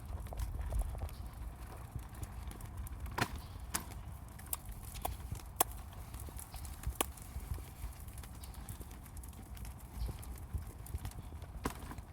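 A small child making sharp popping clicks with his lips, scattered irregularly about a second apart.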